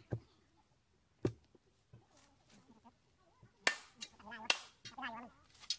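Manual post-hole digger driven into the bottom of a deep hole, landing five sharp metal clanks at uneven intervals, three of them close together in the second half. Men's voices chatter over the later strikes.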